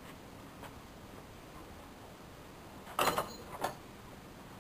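Manual wheelchair held in a wheelie on concrete, mostly quiet, with a short clatter about three seconds in and a smaller knock half a second later.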